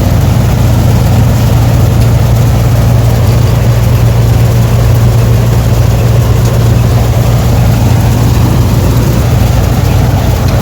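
Heavy farm-vehicle engine running steadily and loud at close range, with a strong even low hum.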